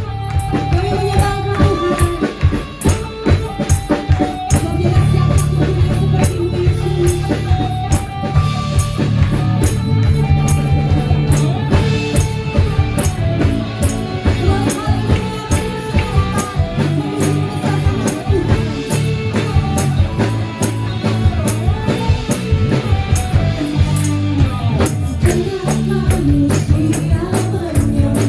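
Upbeat worship song with a full band, strong bass and drums, and tambourine jingles struck in a steady rhythm.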